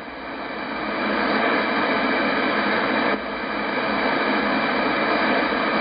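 Shortwave static hissing from a Yaesu FTdx10 transceiver's speaker as its tuning knob is turned across empty frequencies between stations on the 19-metre band. The hiss swells over the first second and drops briefly about three seconds in.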